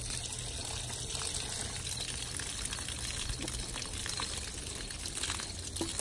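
Water pouring from a plastic bottle over a toy water gun, spilling and trickling onto grass in a steady stream.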